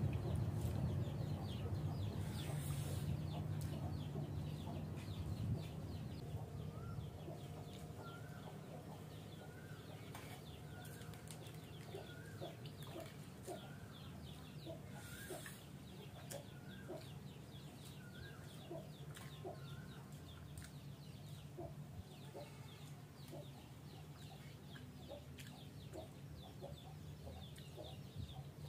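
Chickens clucking in short, repeated calls, over a low steady hum that fades over the first few seconds.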